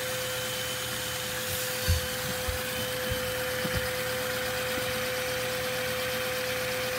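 Three-cylinder Lego vacuum engine running on the suction of a vacuum cleaner. The vacuum gives a steady, even whine and airflow hiss, with a few light knocks about two to four seconds in.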